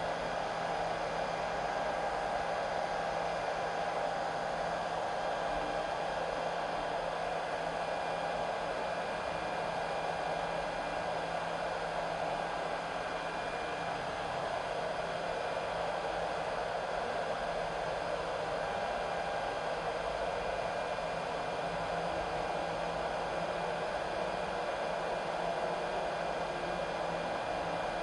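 REGENI BK200S hot-air rework station blowing hot air steadily through its nozzle onto a chip on an iPhone 6 logic board during its heating cycle: an even, unbroken whir with a faint steady hum.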